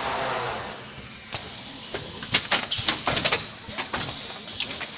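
Automatic canvas stretching machine at work: a motor-driven carriage whirs for about a second, then the machine's pneumatic clamps and slides clack and knock in quick succession, with several short high squeals falling in pitch.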